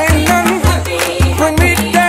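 Background music: a voice singing over a steady beat and a bass line, about two beats a second.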